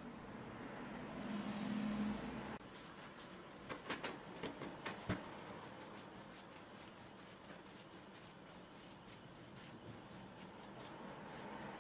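Hands rolling a soft dough log on a wooden board: a soft rubbing hiss that swells and cuts off suddenly, then a few light knocks about four to five seconds in, and faint rubbing after that.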